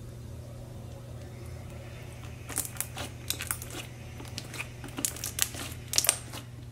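Stretchy purple slime squished and pressed flat by hand on a hard tabletop. From about two and a half seconds in it gives a run of small sticky clicks and crackles, over a faint steady low hum.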